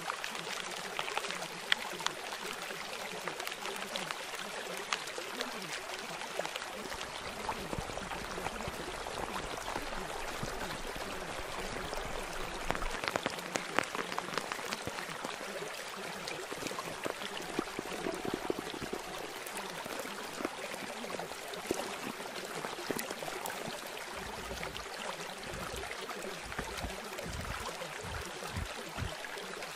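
Steady rain-like water noise with a fine patter of drop clicks throughout. It is the masking track of subliminal audio, the kind laid over quiet spoken affirmations.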